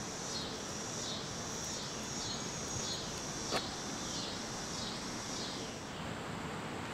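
Outdoor ambience: a pulsing high insect buzz with a few short falling bird chirps, over a steady low rumble. A single sharp click about three and a half seconds in.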